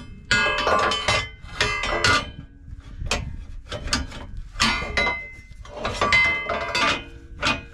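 Steel suspension drop bracket clanking against a Jeep Wrangler JL's frame and skid plate as it is forced into place by hand: a run of irregular metallic knocks with a ringing edge, coming in uneven clusters.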